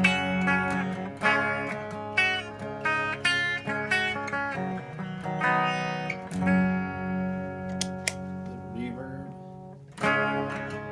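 Electric guitar, an Epiphone Les Paul played through a Marshall TSL 60 valve amp, picking a run of single notes; about six seconds in, one note is held and rings out for a few seconds before the playing picks up again near the end.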